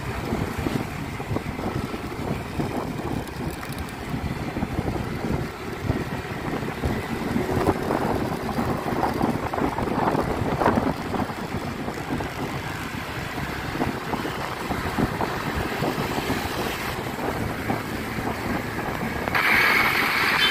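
Wind buffeting the microphone over the engine and tyre noise of a moving motor scooter, rough and uneven throughout. Near the end it grows louder as another scooter draws close alongside.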